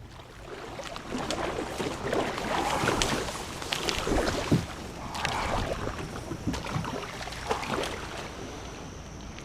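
Water splashing and slapping around a kayak on choppy water, in uneven irregular splashes.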